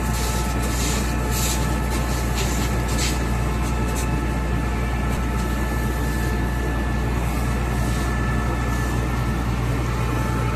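Concrete pump machine's engine running steadily: a constant low drone with several steady whine tones above it, and a few short hissing bursts in the first three seconds.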